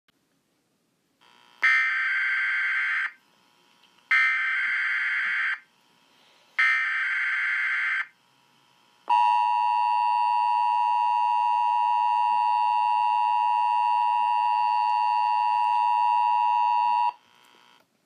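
Emergency Alert System tones: three short bursts of SAME header data, each about a second and a half long, followed by the two-tone attention signal (853 Hz and 960 Hz together) held steady for about eight seconds. Together they open the alert for a Required Monthly Test.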